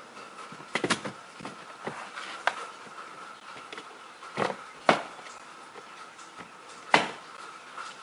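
2008 Honda Odyssey's plastic lower dashboard trim panel being pulled off its retaining clips: a series of sharp plastic snaps and clacks, the loudest about five and seven seconds in.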